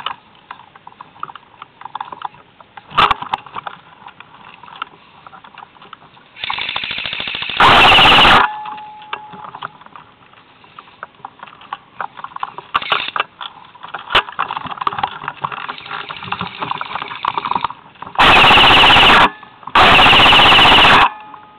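Classic Army SPR airsoft electric rifle firing full-auto bursts right at the microphone, each burst about a second of rapid even shots with the gearbox's whine. The loudest bursts clip, one about a third of the way in and two close together near the end. Between the bursts there is light crackling and rustling of leaves and twigs.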